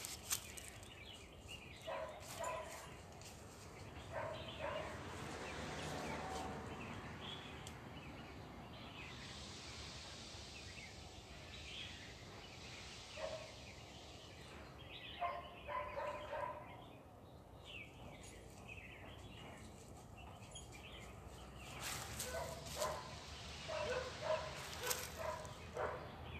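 Short animal calls, now and then and in quick clusters near the end, over the crackle of dry leaves and twigs underfoot.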